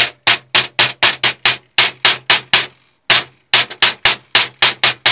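Small hammer tapping quickly on the end of a thin metal tube slipped over a drill bit clamped in a bench vise, flaring the tube's end, at about four light blows a second. The tapping stops briefly a little past halfway, then starts again.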